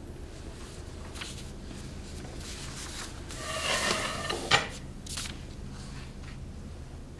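A large sheet of painting paper rustling as it is shifted across the felt underlay, in a few short bouts, the longest about halfway through, ending in a sharp click.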